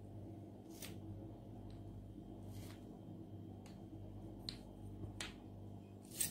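Faint sharp clicks, about six spread over several seconds and the loudest near the end, as hard-candy swirl lollipops on wooden sticks are picked up and knock against each other in a hand. A low steady hum runs underneath.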